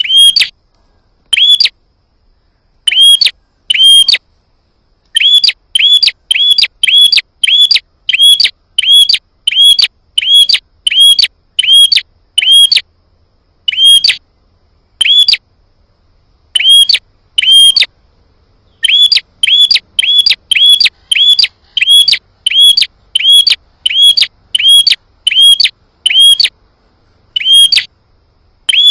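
Prenjak (prinia) calls repeated over and over, each a short, sharp note with a quick upward flick, coming about two a second in runs broken by short pauses. It is a lure recording meant to provoke prenjak into answering.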